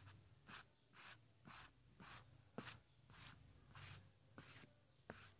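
Rubber eraser rubbed in short back-and-forth strokes on drawing paper, about two faint scratchy swipes a second, with a few light ticks.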